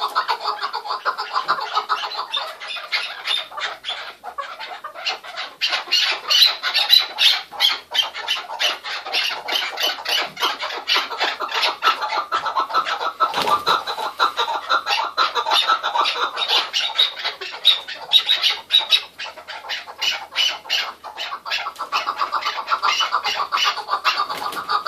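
Chukar partridges calling: a fast, unbroken chatter of short chuck notes, several a second.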